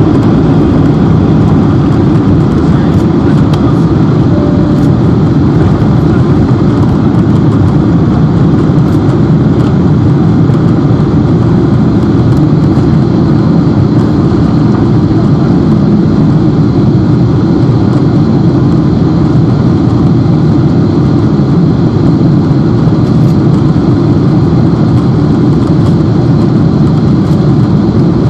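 Boeing 747-8's four GEnx-2B turbofan engines at takeoff thrust during the takeoff: a loud, steady, deep rumble that holds unchanged throughout.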